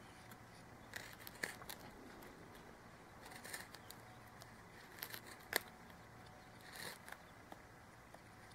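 Knife blade carving a square notch into a seep willow fireboard: faint, scattered short cuts and scrapes of steel in the wood. The sharpest cut comes a little past halfway.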